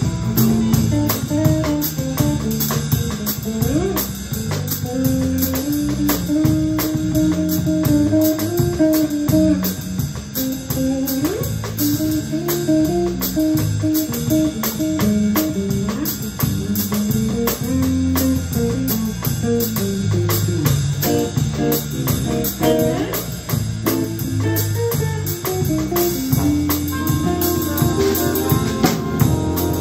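Jazz big band playing a swing chart: an improvised guitar solo over bass and drum kit keeping time on the cymbals. Sustained horn chords enter near the end.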